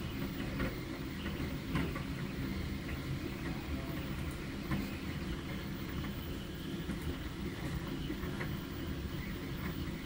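A steady low mechanical hum, with a few faint clicks scattered through it.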